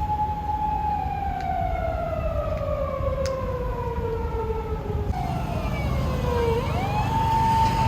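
Japanese police patrol car siren wailing: a long tone held high, sliding slowly down over several seconds, then swooping back up about seven seconds in and holding high again.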